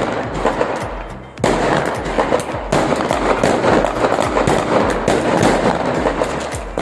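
Fireworks going off in a rapid, dense crackle of many small bangs, which dips briefly and picks up again about a second and a half in. Background music with a repeating bass line plays underneath.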